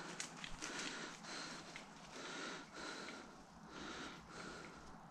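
Faint rhythmic breathing, about one breath every half to three-quarters of a second, with soft rustling in dry leaf litter.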